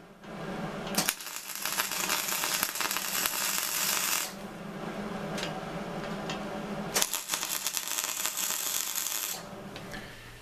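Wire-feed welder tack-welding a steel engine plate: two crackling welds, the first about three seconds long starting about a second in, the second about two and a half seconds long near the end.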